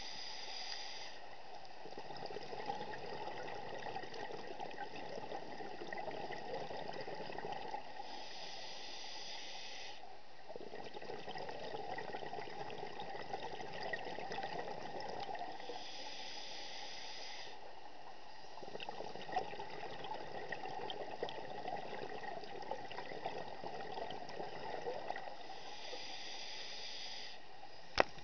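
Scuba diver's regulator breathing, heard underwater: a hiss of inhalation about every eight seconds, each followed by a longer bubbling rush of exhaled air. A single sharp click near the end.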